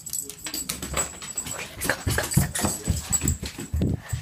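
A pet dog whimpering and panting close up, among irregular rustles and knocks.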